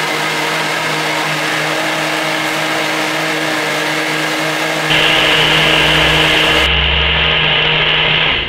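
Electric blender running steadily, mixing the milk and cocoa drink. It gets louder about five seconds in and cuts off sharply near the end.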